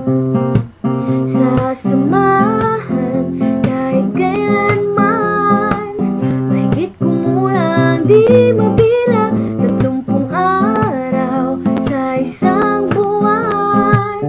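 Background music: acoustic guitar strumming under a woman's singing voice.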